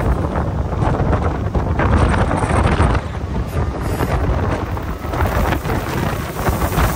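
Wind buffeting the microphone in irregular gusts, a heavy low rumble over a steady background noise.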